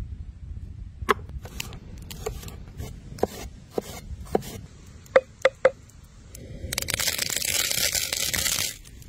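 A knife cutting vegetable stalks on a wooden board: a series of sharp knocks, with three loud quick ones about five seconds in. Near the end a loud, steady hiss lasts about two seconds.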